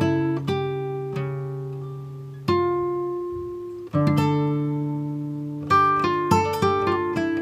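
Background music: a plucked stringed instrument playing single notes and chords that ring out and fade, sparse at first and quicker in the last couple of seconds.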